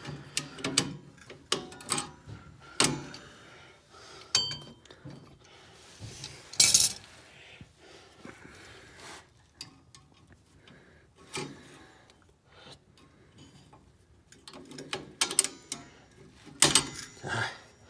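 Hand tools working on car brake parts: irregular metal clinks, taps and short scrapes, with one louder sharp clank about seven seconds in.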